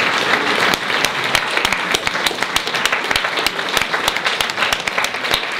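Audience and hosts applauding: dense, steady clapping from many hands.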